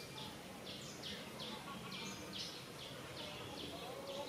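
Outdoor ambience dominated by a train of short, high-pitched chirps repeating about three times a second over a low background hum.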